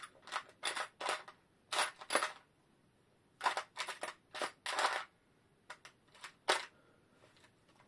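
Small metal parts being handled and set down on a workbench: a series of short, irregular clicks and clinks, grouped in little clusters.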